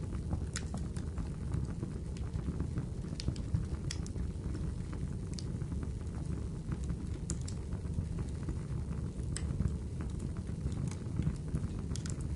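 Fire crackling: a steady low rush with scattered sharp pops and snaps every second or so.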